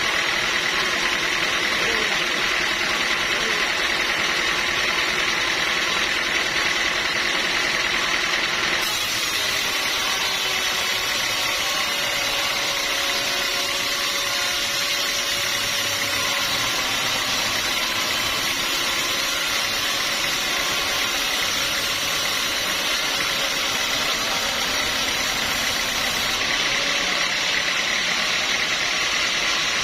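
Sawmill machinery running steadily, engine and saw noise with a high whine through the first part. The sound changes abruptly about nine seconds in and again near the end.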